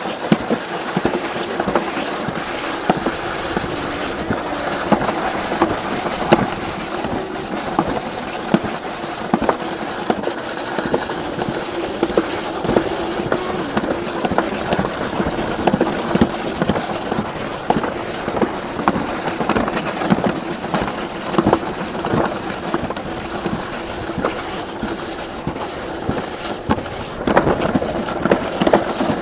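Alpine slide sled running fast down a concrete track: a steady rumbling scrape with many small clacks and rattles as it runs over the track's joints and rough patches.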